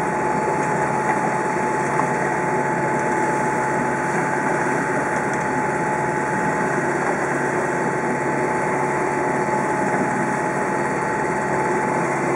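A boat's engine running steadily at one pitch, with a constant whine over an even hiss.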